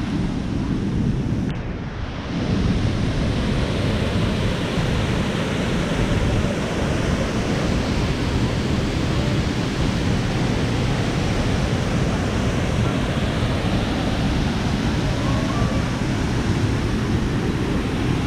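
Steady rush of falling water from a large multi-cascade waterfall, a dense even noise heaviest in the low range, briefly dipping about two seconds in.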